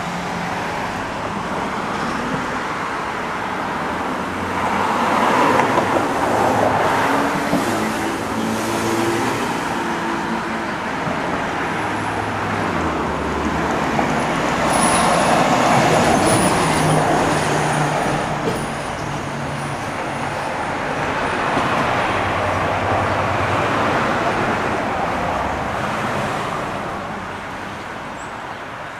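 Road traffic passing on a residential street, including a 2018 KME Severe Service fire pumper driving by without its siren. Heavy engine and tyre noise swells as vehicles pass, loudest about midway through.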